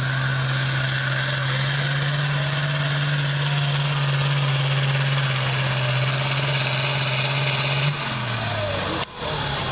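Pro farm class pulling tractor's diesel engine running flat out at high, steady revs under full load, dragging a weight-transfer sled. About eight seconds in, the revs drop and a high whine falls away as the pull ends.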